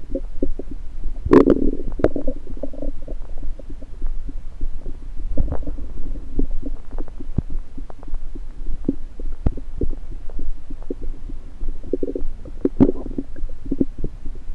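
Stomach gurgling and rumbling picked up through a stethoscope on the belly: irregular bubbling pops and crackles with short low growls, two pops standing out, about a second and a half in and near the end.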